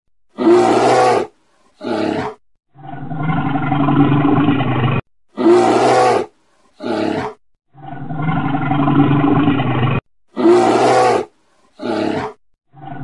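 Brown bear roaring: two short roars and then a longer, drawn-out roar, the same sequence repeating three times about every five seconds, each call cut off abruptly.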